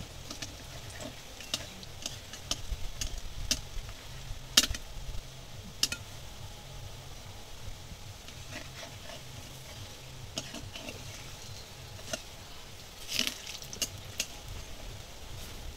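Gandal-leaf and masoor-dal fritters deep-frying in hot oil in a metal kadai: a steady sizzle with a flat spatula scraping and knocking against the pan in sharp strokes. The loudest stroke comes about four and a half seconds in, and there is another cluster near the end.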